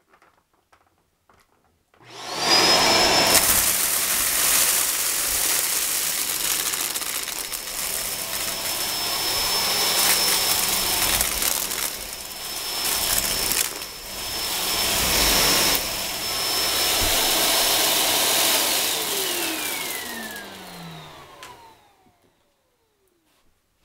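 Shark Duo upright vacuum cleaner switched on about two seconds in and run over pebbles, its motor giving a steady high whine over the rush of air. Near the end it is switched off and the motor winds down, the whine falling in pitch until it stops.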